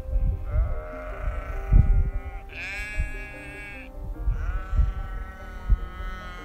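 Sheep bleating: three long, wavering bleats one after another, over background music.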